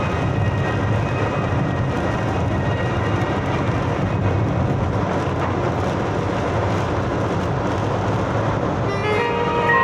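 Steady, loud rushing noise with a low rumble underneath. Music with held tones comes in near the end.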